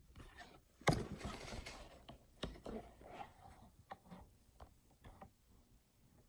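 Faint handling noise as the recording device is picked up and moved in close: a knock about a second in, a short stretch of rustling, then a few light, separate taps and clicks.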